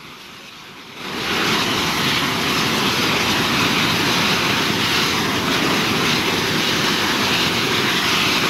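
Loud, steady roar of a burning propane jet spraying from a heat-failed filling hose, starting abruptly about a second in.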